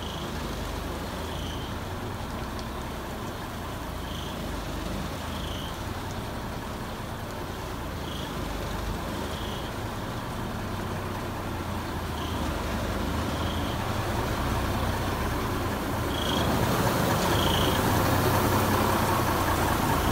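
1985 Mack dump truck's diesel engine idling steadily, a low hum that grows louder near the end. A bird's short high two-note chirp repeats about every four seconds over it.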